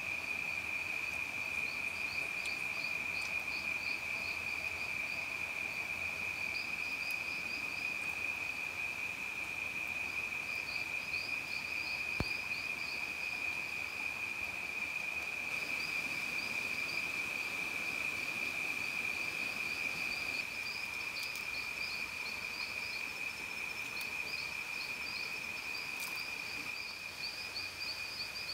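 Night-time insect chorus: one steady, high-pitched drone with rapid, rhythmic chirping trills above it, typical of crickets. A single soft click sounds near the middle.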